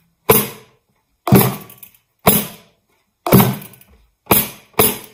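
Homemade samba percussion, with a large bucket drum struck with a soft mallet among tin cans and plastic tubs, played in single loud strokes about one a second; the last two strokes come closer together near the end. Each stroke dies away quickly.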